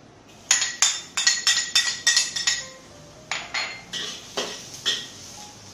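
Metal spatula clanking and scraping against a wok while stir-frying garlic: a quick run of ringing clanks for about two seconds, then a few more spaced out.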